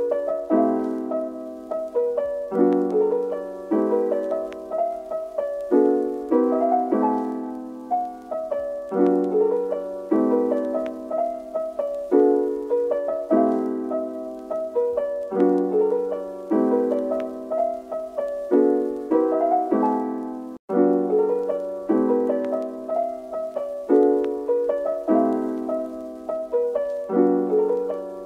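Background piano music: notes and chords struck and left to ring at an even, flowing pace, with a split-second break about two-thirds of the way through.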